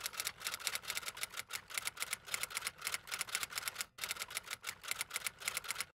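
Typewriter key-click sound effect: a rapid run of sharp clicks, about nine a second, with a short break about four seconds in, stopping abruptly near the end.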